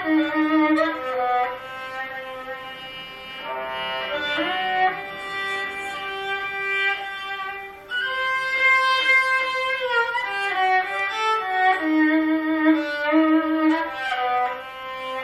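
Four-string Cretan lyra (cello lyra tuned C-G-D-A, walnut body, Lebanese cedar soundboard, 20 sympathetic strings) being bowed in a slow melody of held notes. A lower note often sounds together with the melody.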